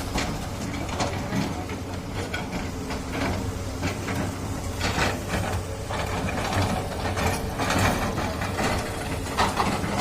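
Doosan DX200A excavator's diesel engine running steadily under load, with irregular metallic clanking and rattling from the working machine that comes more often in the second half.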